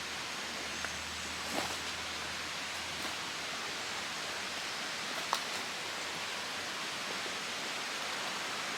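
River rushing steadily below, with a couple of faint clicks.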